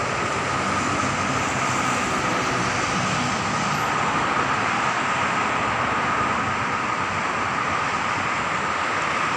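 Steady street background noise: an even, unbroken hiss of traffic and city noise with a constant high-pitched whine running through it.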